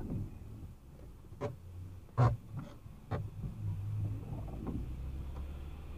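Low steady hum of a car standing still, heard from inside the cabin, with three or four sharp clicks, the loudest about two seconds in.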